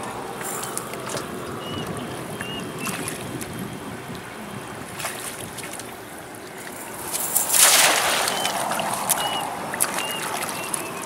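Shallow water sloshing and splashing as a cast net is worked, with scattered small knocks and one louder, longer splash about seven and a half seconds in.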